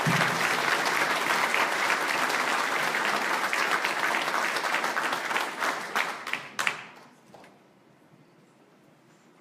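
Audience applauding, the clapping dying away with a few last claps about seven seconds in.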